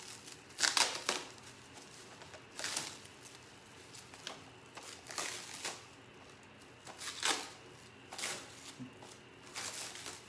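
Packaging wrapping rustling and crinkling in short irregular bursts as a wrapped parcel is handled and opened.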